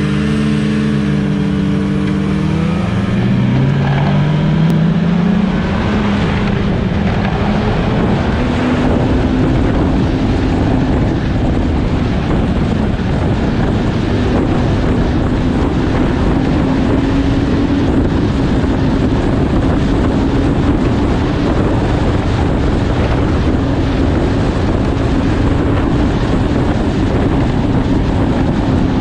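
Snowmobile engine accelerating, its pitch climbing over the first few seconds, then running steadily at speed over a loud, broad rushing noise.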